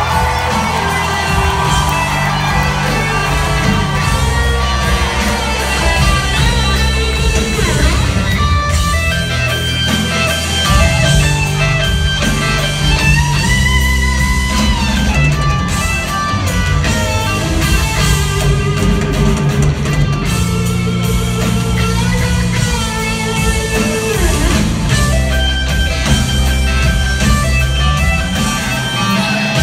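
Live rock band playing an instrumental passage: electric guitar leads with bending notes over bass guitar and drums, heard from the audience in a theater hall.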